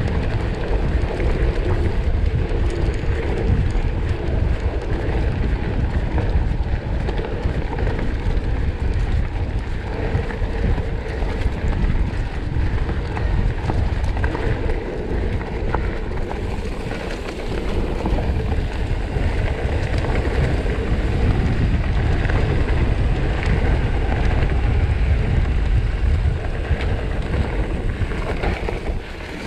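Wind buffeting an action camera's microphone as a mountain bike rolls over a rough trail, with a constant rumble and many small knocks and rattles from the bike.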